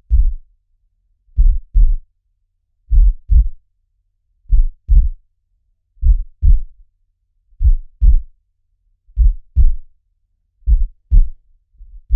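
Slow heartbeat sound effect: low double thumps, lub-dub, repeating about every second and a half, eight beats in all, with silence between them.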